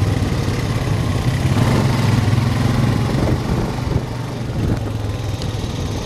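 ATV engine running with a steady low drone.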